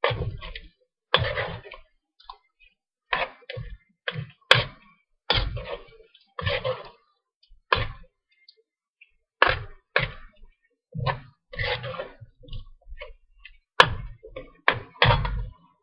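A long metal spoon scraping and knocking against a metal wok while chicken is stirred, in irregular strokes about one or two a second.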